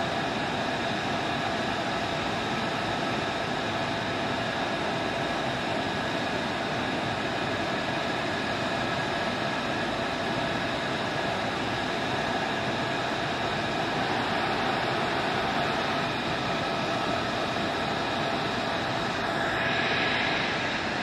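Steady jet aircraft noise on a flight line: a constant rushing hiss with several high tones held steady, swelling briefly louder near the end.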